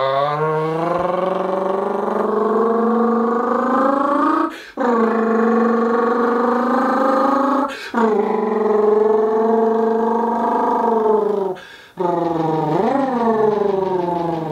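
A man imitating a revving American V8 muscle-car engine with his mouth: a long, loud vocal drone that climbs slowly in pitch, breaks off and starts again three times, and ends in quick up-and-down pitch swoops.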